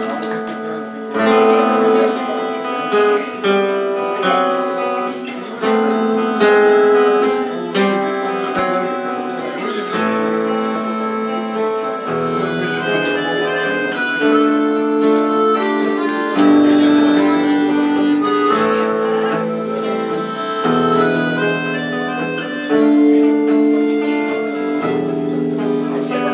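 Instrumental music led by guitar, with a melody of long held notes over it; a deep bass line comes in about halfway.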